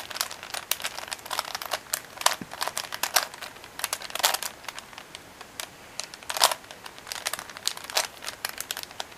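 Plastic Rubik's Cube being turned with one hand: irregular quick clicks and short scraping rasps as its layers turn, several a second with brief pauses.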